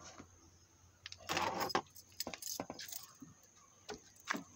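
Small objects being handled, jingling and rattling in a few short bursts with scattered clicks.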